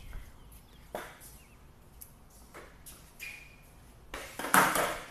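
Skateboard on a concrete floor: a few sharp clacks of the board. Near the end comes a loud clatter lasting under a second, the loudest sound here.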